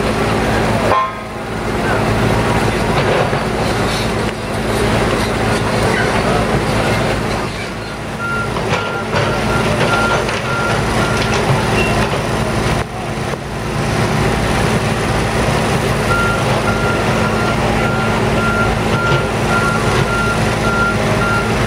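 Diesel engines of heavy construction machinery running steadily, with a back-up alarm beeping at an even pace in two spells, one about a third of the way in and one through the last quarter.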